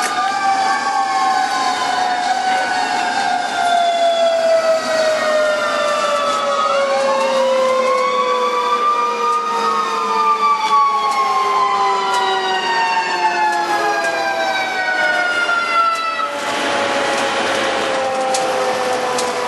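Fire engine siren heard from inside the cab, a long pitched wail winding slowly down throughout, with a second wail sweeping up and down over it in the middle. A rushing noise comes in near the end.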